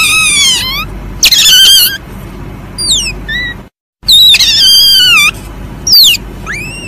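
Asian palm civet calling: a series of high, wavering squeals that slide downward in pitch, some drawn out for about a second and others short and steep. The last call arches up then down, and the calls break off in a moment of complete silence just before the middle of the series.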